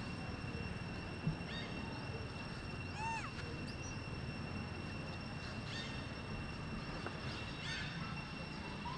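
A few short, arched chirping animal calls, spaced a couple of seconds apart, over a steady high-pitched insect drone and outdoor background noise.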